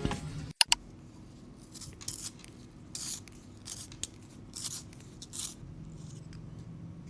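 Two quick clicks, then a series of short scraping, rubbing strokes of objects being handled, over a low steady hum.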